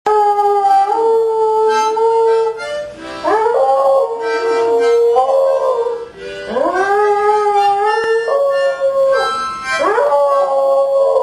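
Rat terrier howling along with music: long held howls, each starting with an upward swoop, about three times over steady sustained musical notes.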